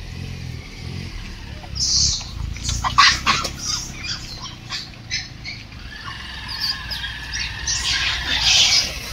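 Sharp, high squawking animal calls: a cluster of short ones about two to three seconds in, and a longer run of high calls near the end.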